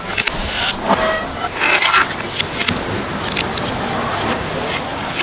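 A spoon scraping and clicking against a clay mortar as dressed salad is scooped out onto a plate, with several short sharp clinks in the middle, over a steady background din.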